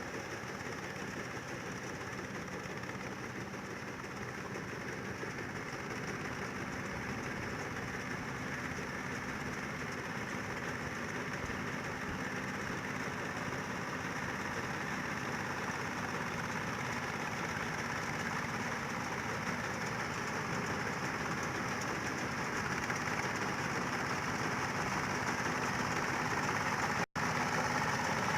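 Combine harvester's diesel engine running steadily, slowly growing louder, with a brief dropout near the end.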